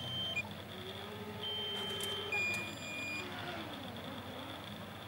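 Low-battery warning beeps from the DJI Mini 2's remote controller during an automatic return-to-home: held electronic beeps of just under a second each, a higher one followed by a slightly lower one, sounding because the drone's battery is low.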